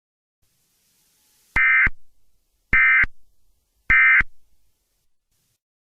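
Emergency Alert System end-of-message data bursts: three short, identical bursts of buzzy digital tone, about a second apart, marking the end of the alert.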